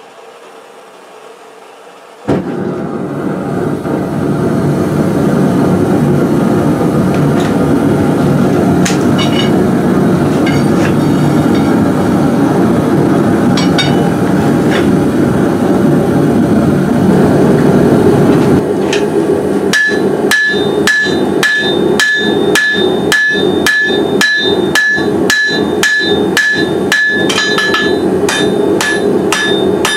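A gas forge burner runs with a steady roar from about two seconds in. From about twenty seconds in, a hammer beats red-hot steel on an anvil about twice a second, each blow ringing with a clear metallic ping.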